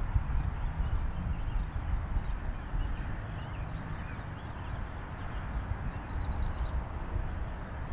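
Wind buffeting the microphone in an uneven low rumble, with a few faint bird chirps about three seconds in and again near the end.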